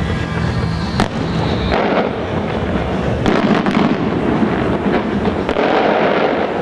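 Aerial firework shells bursting in quick succession, with a sharp bang about a second in and a dense crackling and popping from crackle stars.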